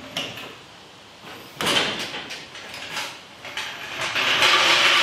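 A Chevy C10 pickup being let down off its stands with a floor jack onto freshly heat-lowered coil springs: a sudden clatter of metal about a second and a half in, a few knocks, then a longer grating, rolling noise near the end as the jack is worked and moved on the concrete.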